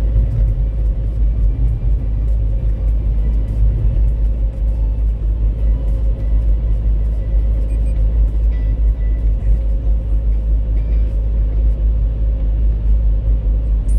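Steady low rumble of a car driving at a constant speed, heard inside the cabin: engine and tyre road noise.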